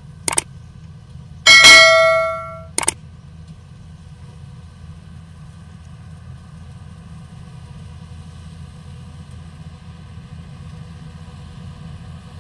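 Subscribe-button animation sound effects: a click, a bright bell ding that rings out for about a second, then another click. Under them runs the steady low hum of a Yanmar AW70 combine harvester's engine.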